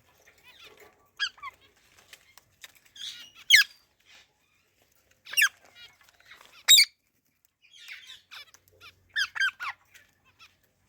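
Parrots calling: half a dozen loud, shrill screeches spaced a second or two apart, with softer chirps and squeaks between them.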